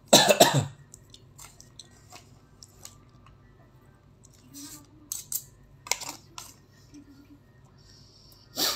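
Eating sounds: chewing, with scattered short clicks and scrapes of a plastic fork in an aluminium foil food tray. A loud brief burst of noise right at the start, and a shorter one near the end.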